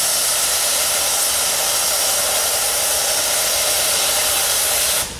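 Steam blowing off from the top of Nickel Plate Road 765's boiler (a 2-8-4 Berkshire steam locomotive standing still), most likely its safety valves releasing excess pressure: a loud, steady hiss that cuts off abruptly just before the end as the valves reseat.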